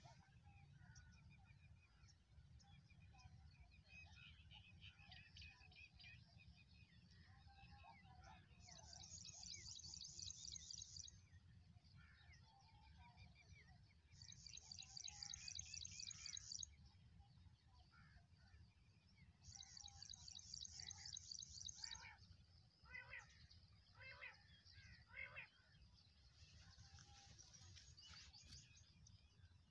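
Faint birds chirping, with a high fast trill of about two seconds that repeats four times, roughly every five or six seconds, and a quick run of short sharp calls in between, over a low steady rumble.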